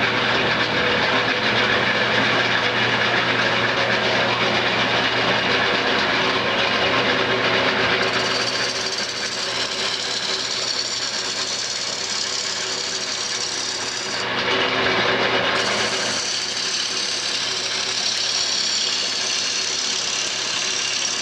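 Wood lathe running with a steady motor hum while a hand-held turning tool cuts the spinning wood spindle, a continuous hiss of shavings. The upper part of the hiss drops out for a moment about two-thirds of the way through.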